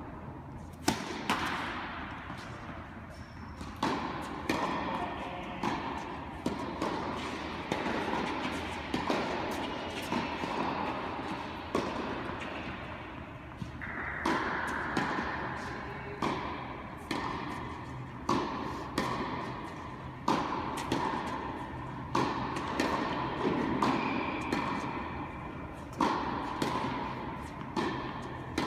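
Tennis balls struck by rackets and bouncing on an indoor court, a string of sharp hits and bounces at irregular intervals, each echoing in the hall, the loudest a serve about a second in; a steady hall hum runs underneath.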